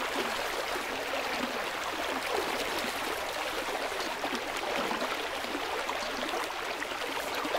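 Rocky mountain stream rushing and splashing over boulders: a steady whitewater rush.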